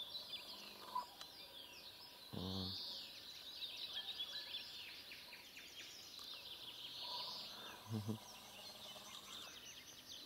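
Dawn chorus of many songbirds trilling and chirping over one another. Two short low sounds break in, about two and a half seconds in and again near eight seconds.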